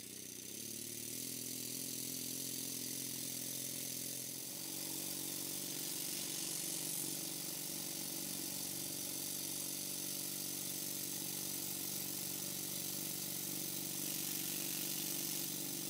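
Twin-cylinder model marine steam engine running steadily on compressed air. It runs smoothly now that its gummed-up cylinders have been warmed and the oil gets through.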